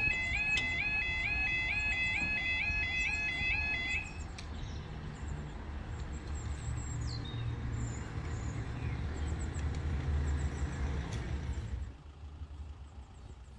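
Level crossing yodel alarm warbling at about three to four warbles a second, cutting off about four seconds in. After it, a low steady rumble of road vehicles idling in the queue at the lowered barriers, which drops away near the end.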